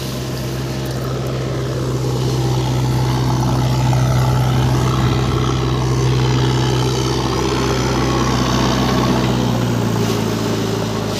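JCB 3DX backhoe loader's diesel engine running steadily as the machine drives up carrying a full bucket of aggregate. It grows louder over the first few seconds as it comes close.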